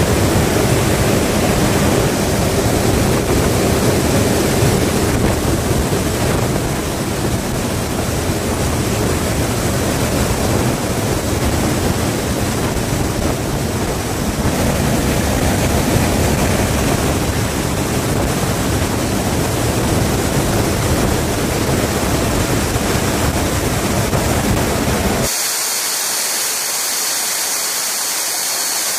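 Steady rush of wind and engine noise through the open rear cargo ramp of a military transport aircraft in flight. About 25 seconds in it changes abruptly to a thinner high hiss with the low rumble gone.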